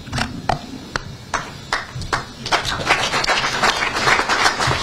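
Crowd clapping: a few separate claps at first, thickening into continuous applause about two and a half seconds in.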